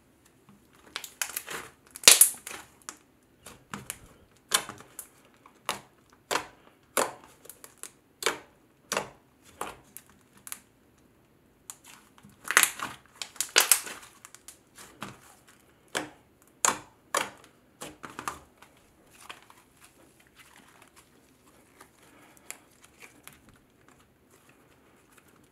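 Hands kneading and pressing a soft, doughy cloud cream slime, making a string of sharp, sticky pops and clicks about one or two a second. The loudest pops come about two seconds in and again around twelve to fourteen seconds; after that they grow fainter and sparser.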